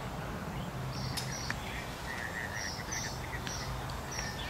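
Outdoor ambience: a string of short, high bird chirps over a steady low hum, with a couple of sharp clicks a little over a second in.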